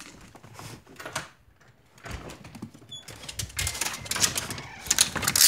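Handling noise from a phone held against clothing: a rapid, irregular run of clicks and rustles, denser and louder in the second half.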